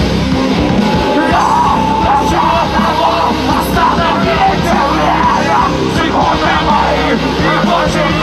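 A rock band playing live, loud and continuous, with a singer yelling over the band.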